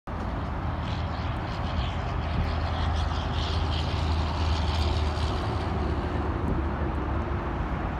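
Steady low rumble of distant diesel locomotives on an approaching freight train, blended with highway traffic noise.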